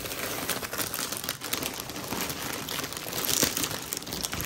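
Thin plastic poly mailer bag crinkling and rustling as it is pulled open by hand, a dense run of crackles with the loudest crinkle about three and a half seconds in.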